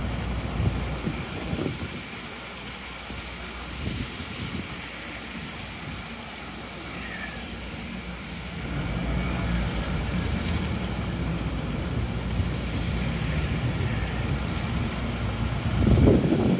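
Traffic on a rain-soaked city street: vehicles passing with tyre hiss on wet pavement and engine rumble. A heavier engine rumble from a large vehicle builds from about halfway in, with a louder swell just before the end.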